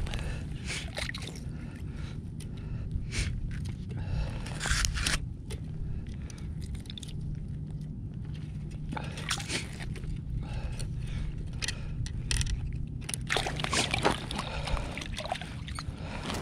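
A spinning reel being cranked and gear and clothing rustling while a fish is reeled up, heard as irregular scrapes and rustles over a steady low rumble.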